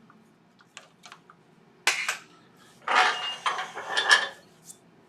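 Metal and wood clinking and clattering as a bowl is handled off a wood lathe chuck to be turned around: a few sharp clicks, then about a second and a half of rattling with brief metallic rings.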